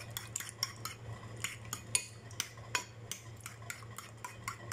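A metal spoon beating raw eggs with chopped spring onion in a ceramic bowl: quick, irregular clinks of the spoon against the bowl, a few each second.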